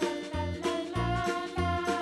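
Upbeat children's background music with a bouncy bass and a bright melody.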